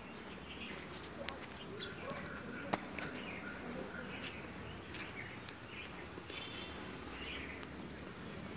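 Birds chirping in short, repeated calls, with a few sharp clicks, the loudest about three seconds in.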